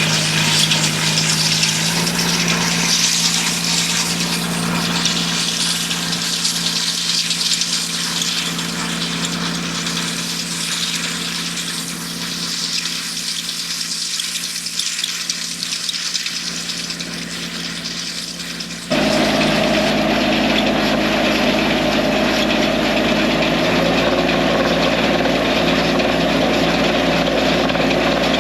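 Tractor engine running steadily while pulling a rotary hay rake through the hay, with a steady hiss over it. About two-thirds of the way through, the sound changes suddenly to a louder, fuller engine drone.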